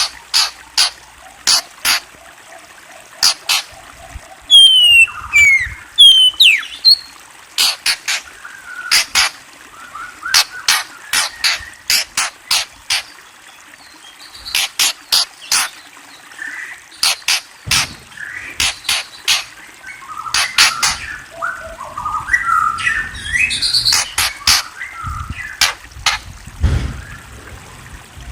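Birds calling: a long series of sharp, clicking chip notes, often one or two a second, with a few whistled falling notes about five seconds in and a stretch of chattering warble in the second half.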